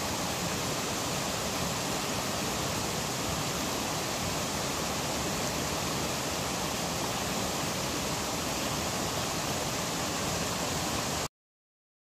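Steady rush of water from a small waterfall and stream, cutting off suddenly near the end.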